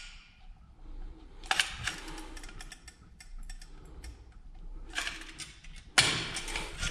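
Scattered clicks and short scraping bursts as adhesive is applied by hand to a polystyrene (HDPS) baseboard. The loudest burst comes near the end.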